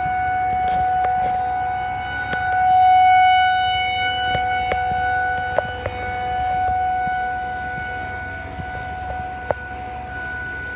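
Outdoor civil defense warning siren sounding a steady tone for a severe thunderstorm warning, holding one pitch while growing louder and fainter every few seconds. A few sharp clicks come through over it.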